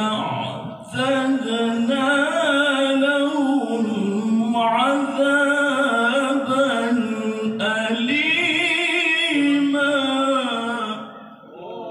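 A man chanting Quranic recitation in the melodic tilawah style through a microphone and loudspeaker, with long held, ornamented notes and short pauses for breath. He finishes the phrase shortly before the end.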